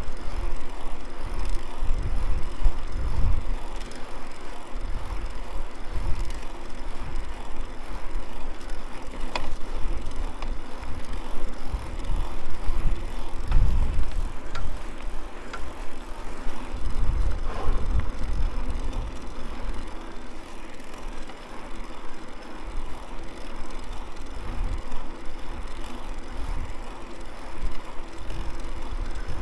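Mountain bike being ridden along a trail: tyre and frame noise with irregular low rumbles and a few sharp clicks.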